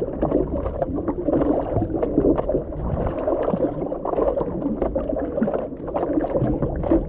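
Water sloshing and splashing against a surfboard and the paddling hands as a surfer paddles it lying prone, with many short splashes over a continuous wash.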